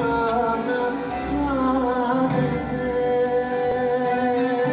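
Live Greek laïko concert music: a voice singing long held notes over an instrumental ensemble.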